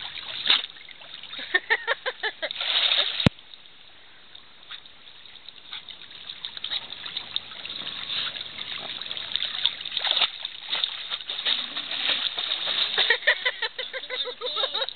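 Pool water splashing and sloshing as a dog paddles and is handled in the water, with brief voices. A sharp click about three seconds in, after which it is quieter for a few seconds before the splashing builds again.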